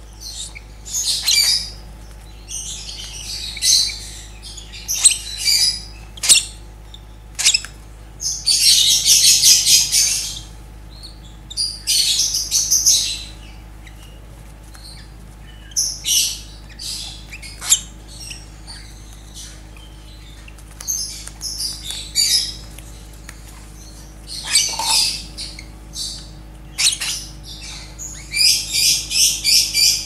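Lovebird chick about a month old giving raspy, rapidly pulsed food-begging squawks while being syringe-fed formula. The calls come in repeated bursts, the longest and loudest about eight seconds in and again near the end.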